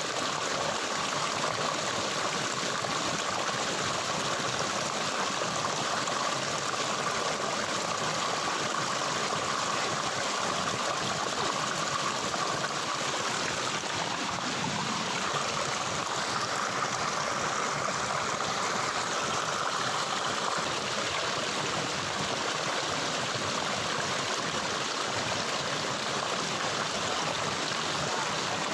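Stream water flowing steadily, an even, unbroken sound of running water.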